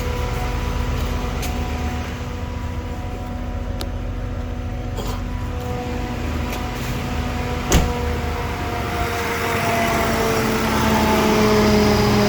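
BMW E46 325i front cooling-fan area with the A/C on: a steady, loud mechanical whine over the engine running, which the owner suspects comes from the auxiliary fan. A sharp click comes about two-thirds of the way in, and then the whine's pitch slowly falls.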